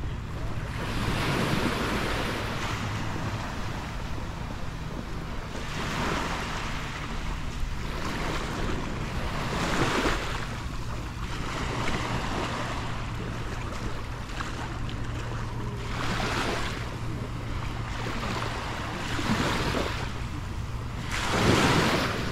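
Small waves breaking and washing up the sand every few seconds, the loudest near the end, with wind on the microphone.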